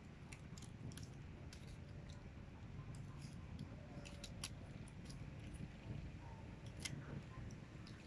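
Small Rubik's cube being twisted by hand: irregular sharp plastic clicks as its layers turn, a little louder around the middle and near the end.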